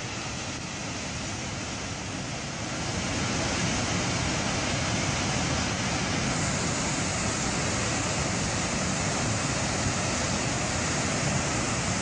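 A huaico, a fast mudflow of water, mud and rocks, rushing down its channel as a dense, steady noise that grows louder about three seconds in.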